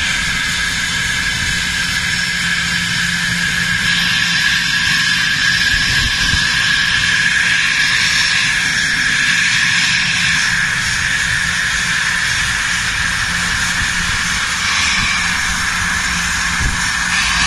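Bombardier Global Express business jet's two rear-mounted Rolls-Royce BR710 turbofans running at taxi power: a steady high whine over a rushing hiss and a low hum.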